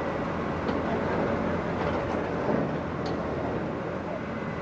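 A heavy vehicle's engine running steadily with a low rumble, with a few faint clicks over it.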